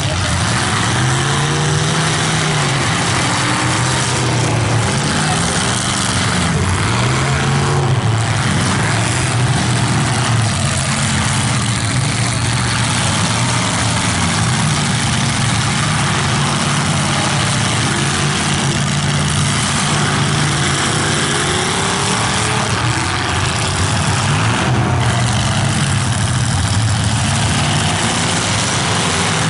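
Engines of full-size demolition derby cars revving hard. Their pitch rises and falls again and again over a steady, loud din.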